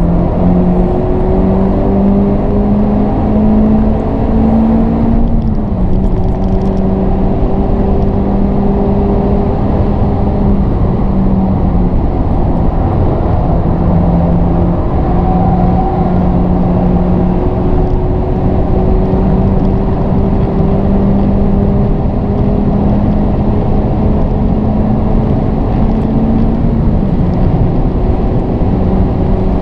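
Honda Civic Type R FK8's 2.0-litre turbocharged four-cylinder engine accelerating hard, heard from inside the cabin. The engine note climbs slowly and drops back as it shifts up: at the start, about 5 seconds in, and near the end. A steady rush of road noise runs underneath.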